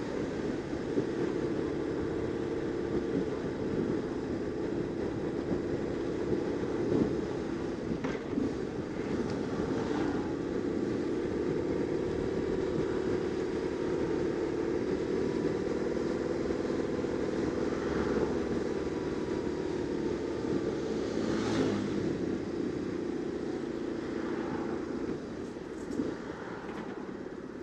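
BMW R850R's air-cooled boxer twin engine running steadily at low speed in town traffic, its note easing and getting quieter near the end. A brief sharp noise cuts across it about three quarters of the way through.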